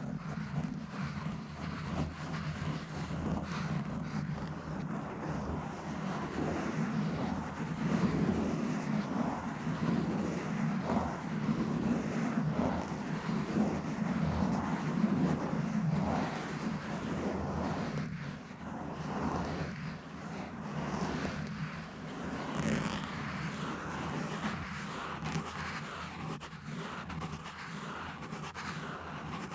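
Scratching directly on a microphone: a run of irregular rubbing and scraping strokes over a steady low rumble from the handled mic.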